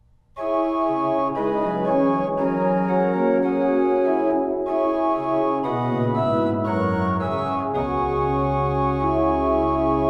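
Pipe organ playing a slow succession of sustained chords. A deep pedal note enters about eight seconds in and holds beneath the final chord.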